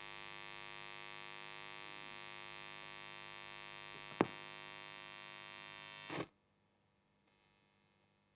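Steady electrical mains hum, a buzz with many overtones coming through a speaker, with one sharp click about four seconds in; the hum cuts off suddenly a little after six seconds.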